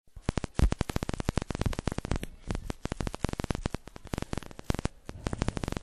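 Rapid, irregular clicking and knocking, many sharp strikes a second, with a short lull a little after two seconds and thinner near the end.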